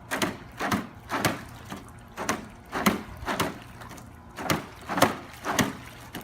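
A series of sharp knocks, about nine in three groups of three, each group's knocks about half a second apart.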